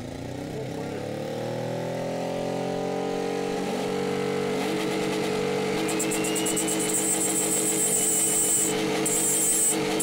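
Car engine revving up over the first two seconds and holding high, spinning a large Kirovets tractor turbocharger. From about five seconds in, a high rasping grind joins as steel rebar is pushed into the spinning compressor inlet and the wheel grinds against it.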